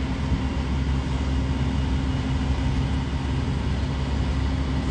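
Steady low rumble of a vehicle engine running, with a constant low hum and no change in pace.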